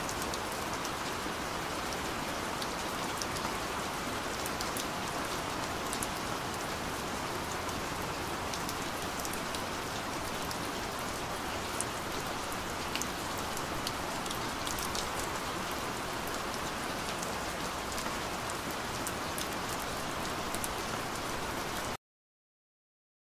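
Steady rain-like hiss with scattered light ticks, which cuts off suddenly about 22 seconds in.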